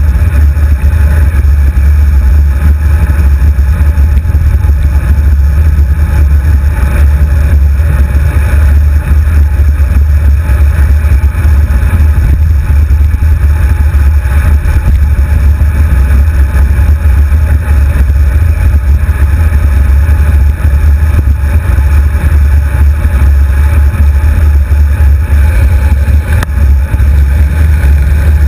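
Steady, loud low rumble of wind and road vibration picked up by a handlebar-mounted GoPro HD2 on a road bike in motion.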